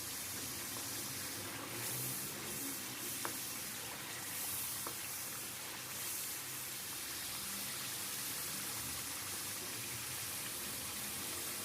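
Chicken curry masala sizzling steadily in the pan as it is fried down once its cooking water has mostly cooked off, with two faint clicks, about three and five seconds in.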